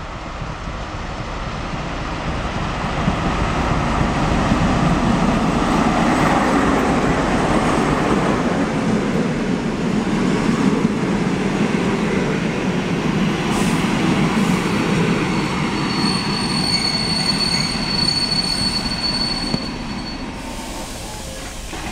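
TEP70BS diesel locomotive and its passenger coaches running in alongside the platform, the noise of engine and wheels on rails swelling as they pass. Over the last few seconds the brakes squeal in a high steady tone as the train slows to stop at the halt.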